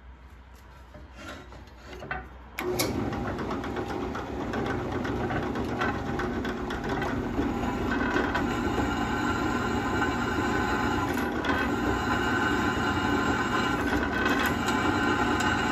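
Drill press twist bit cutting into a cast aluminium headstone: about three seconds in the bit bites and a steady cutting and rubbing noise starts, growing somewhat louder partway through as the hole deepens.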